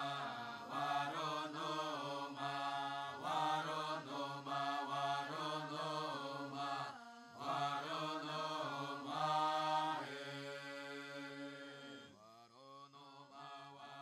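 Chanted vocal music: one voice singing a bending, repetitive line over a steady low drone, growing quieter near the end.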